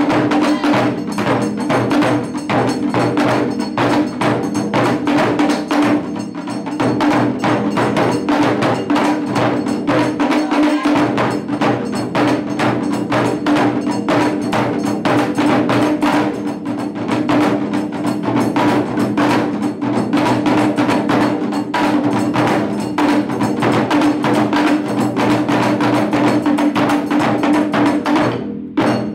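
Japanese taiko drum ensemble playing a fast, dense rhythm: rapid sharp strikes on small shime-daiko over beats on large barrel drums.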